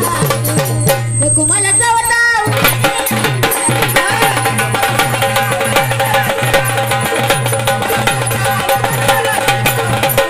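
Instrumental interlude of a Marathi devotional folk song: drums beating a fast, dense rhythm over a steady low drone, with a short bending melodic phrase about a second in.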